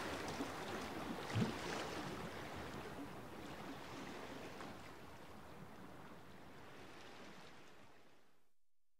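Faint, even rushing noise with a single soft thump about a second and a half in, fading gradually away to silence near the end.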